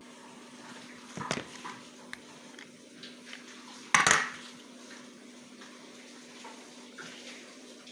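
Kitchenware being handled: a few light knocks, then one sharp clatter about four seconds in, over a steady low hum.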